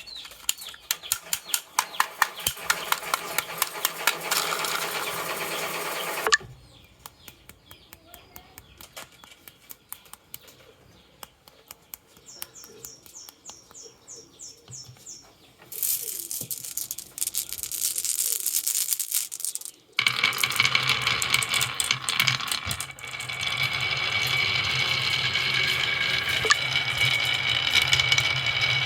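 Marbles rolling and clacking along a toy marble run. It starts with dense rapid clicks as the marbles hit the track and each other, turns to quieter scattered ticks, then gives way to a steady rolling rumble.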